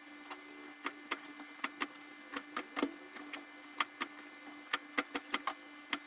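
Kitchen knife cutting okra on a cutting board: irregular sharp clicks, two or three a second, over a faint steady hum.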